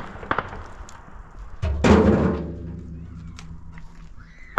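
A loud thump about two seconds in that rings on for about a second before fading, with lighter knocks and clatter around it and another sharp knock at the very end.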